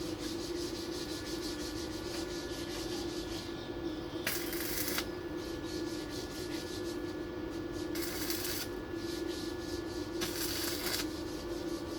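Three short bursts of arc-welding crackle, tack welds joining a reinforcing piece to a car door's shock mount, each under a second long, over a steady electrical hum.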